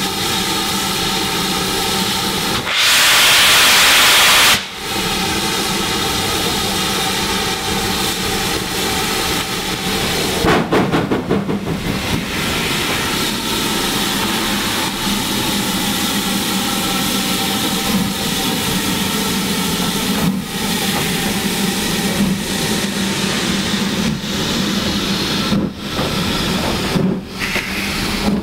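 BR Standard Class 4 2-6-4 tank steam locomotive hissing steadily as it stands at and moves slowly along the platform. About three seconds in, a much louder blast of escaping steam lasts about two seconds.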